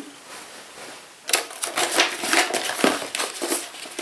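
Paper rustling and crinkling as flyers and samples in a box are handled, a quick run of crackles starting about a second in.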